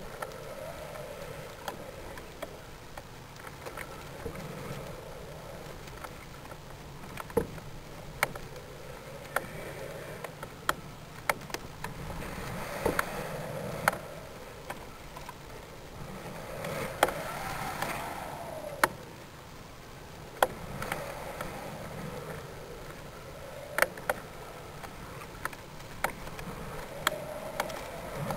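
Steady rushing and rustling on the microphone of a camera riding a balloon's flight string in ascent, with sharp clicks and knocks from the swinging payload scattered throughout, a few of them loud.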